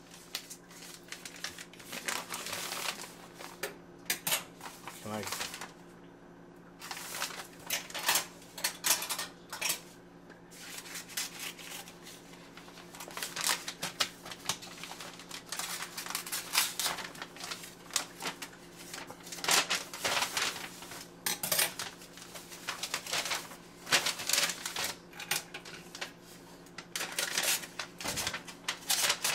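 Scissors snipping into a Priority Mail envelope, then the envelope crinkling and rustling in short, irregular crackles as it is handled and pulled open, over a faint steady hum.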